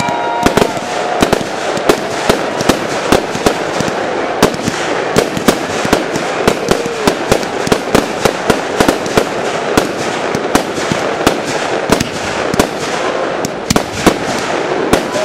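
Fireworks display: aerial shells bursting in quick succession, about two or three sharp bangs a second over continuous crackling.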